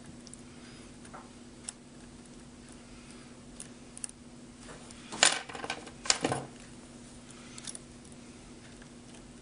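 Steel lock pick clicking and scraping against the pins inside a Master Lock 575 padlock's keyway, with faint scattered ticks and two louder scraping bursts a little past the middle.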